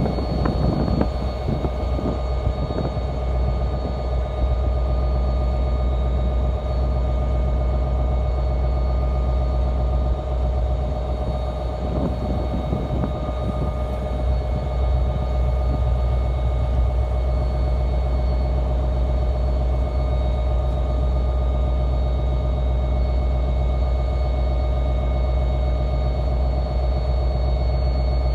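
NJ Transit diesel locomotive idling: a steady low drone with a few held tones over it.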